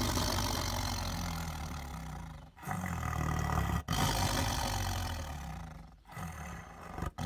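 A tiger roaring over its meat in long, low rumbles, four in a row with short breaks between them.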